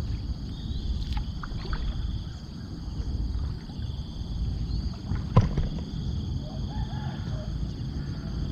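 Water sloshing around a small fishing boat, with a few sharp knocks against it, the loudest about five seconds in.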